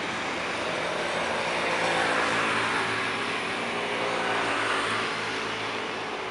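Jet airliner engines passing, a broad rush with a steady low hum that swells to its loudest about two seconds in and then eases off.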